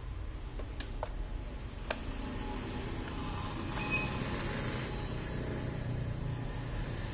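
A few sharp plastic clicks from handling a Flytec 2011-5 bait boat remote transmitter, then one short electronic beep about four seconds in, over a low handling rumble.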